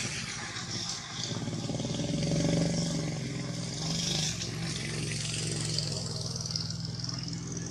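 A vehicle engine running steadily, growing louder about two seconds in and then holding, with a steady high hiss above it.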